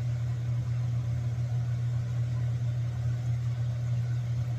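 A steady low mechanical hum with no change in pitch or level.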